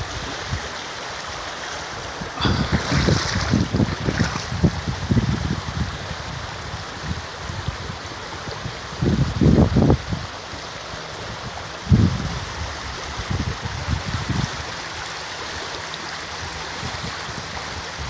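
Shallow mountain river rushing steadily over a stony riffle, with a few low rumbles on the microphone.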